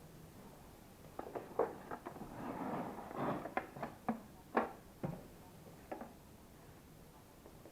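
Handling noises from the parts of an LG bagless vacuum cleaner: about a dozen sharp clicks and knocks with some rustling in between, dying away about six seconds in.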